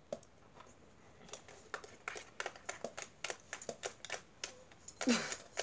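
Long false nails tapping and clicking on the plastic body of an Instax instant camera: a run of quick, sharp, irregular clicks, a few a second, starting about a second in.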